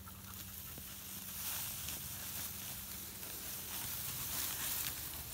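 Dry, ripe wheat stalks and ears rustling and brushing against the phone as it is pushed through the standing wheat, a steady dry crackling hiss.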